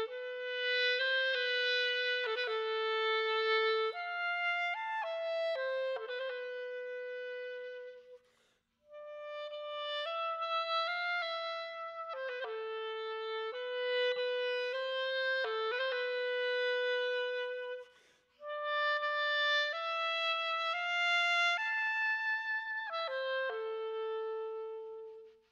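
Solo wooden clarinet playing a slow melody of long held notes that move in small steps, in three phrases with two short pauses between them.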